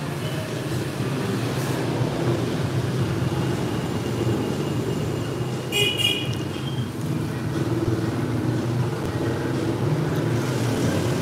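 Steady street traffic rumble, with a short high-pitched clink about six seconds in.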